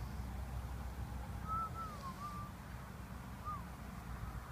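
Low, steady rumble of wind on the microphone, with a few faint whistled notes that glide up and down, one group about halfway in and a single note near the end.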